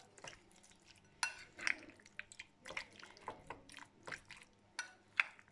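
Spoon stirring raw chicken pieces in an oily spice marinade in a glass bowl: irregular wet clicks and scrapes against the glass.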